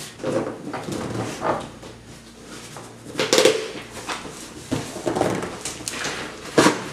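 Cardboard bike-frame shipping box being handled and opened: scrapes, rustles and knocks of the cardboard and its flaps, in a few separate strokes, with a short squeaky sound a little past three seconds in.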